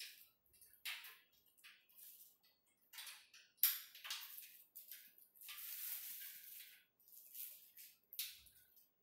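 Plastic wrap on treadmill frame tubes crinkling and rustling in irregular bursts as the tubes are handled, with a sharp click about three and a half seconds in.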